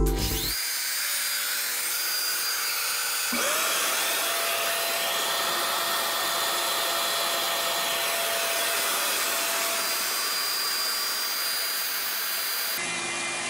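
Router spindle on a Maslow CNC running steadily while cutting into a cherry wood board, with a steady whine that comes in about three seconds in. The machine is struggling and not cutting smoothly because the depth of cut and feed rate are set too high.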